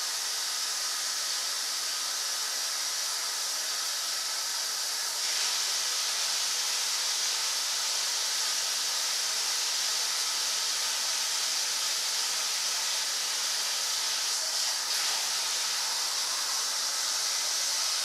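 A steady rushing hiss that gets a little louder about five seconds in and cuts off suddenly at the end.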